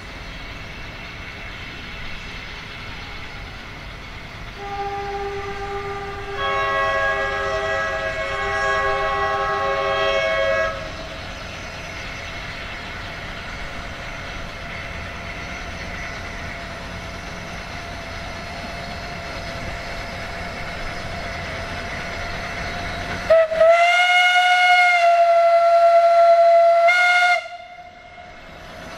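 Steam locomotive whistle from a small narrow-gauge tank engine. A chord-like blast of about six seconds starts about five seconds in, and its notes shift partway through. Near the end comes a second, much louder blast of about four seconds, heard up close from the cab, which cuts off sharply.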